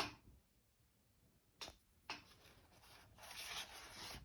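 Faint paper rustling and sliding as a picture book's page is handled and turned, with a couple of soft taps about halfway through.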